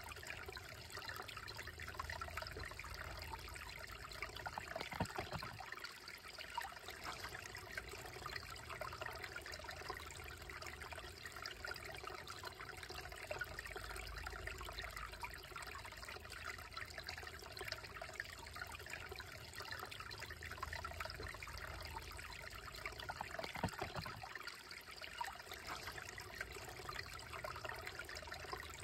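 Slow-moving shallow creek trickling and babbling over stones and a small cascade between boulders, a steady, even flow.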